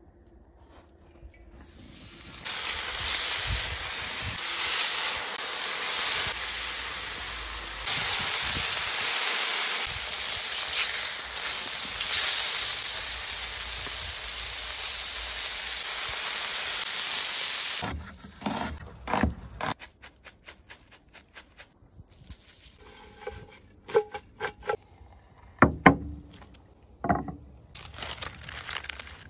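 Batter-coated capelin frying in hot oil in a large pan, a loud steady sizzle that stops abruptly after about sixteen seconds. Then scattered crinkling of kraft paper and a few light knocks as the paper is handled on a wooden board.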